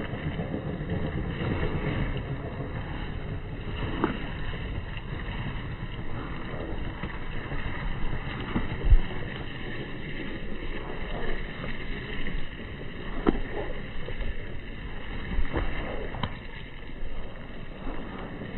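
Outdoor rumble of wind buffeting the microphone beside a flowing river, with a few sharp knocks of an RC scale crawler truck's tyres on gravel and stones, the loudest about nine seconds in.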